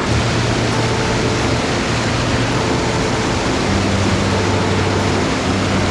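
Mountain stream rushing steadily, with low held notes of background music under it that change about once a second.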